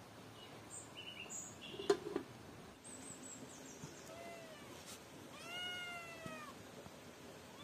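A black kitten meowing: a short meow about four seconds in, then a longer, drawn-out one a second later. About two seconds in, a sharp metal clank as the aluminium pot's lid is set down.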